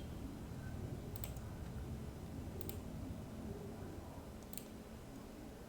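Three single computer mouse clicks, spaced a second or two apart, over a low steady hum.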